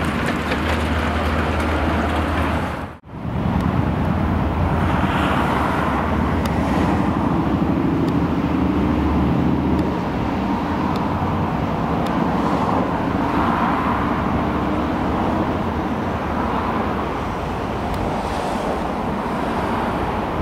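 Motor traffic noise: the engine of a tourist road train running as its carriages pass close by, cutting out briefly about three seconds in, then a steady hum of the road train and cars moving along the road.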